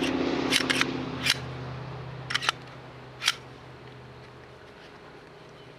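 A series of short, sharp plastic clicks and knocks, about seven in three and a half seconds, as a Glock 17 pistol and its magazine are handled and set into a hard plastic Glock case. A low steady hum fades away over the first two seconds.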